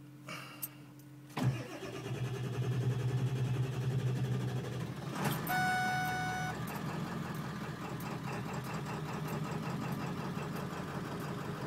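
Ford diesel truck engine starting on about the fourth attempt, a hard start despite the glow plugs and overnight block heater: it fires about a second and a half in and keeps running steadily. A short steady tone sounds over it about five seconds in.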